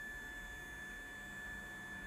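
A steady high-pitched whine over a low hum from powered electronics on a repair bench, with no change in pitch or level.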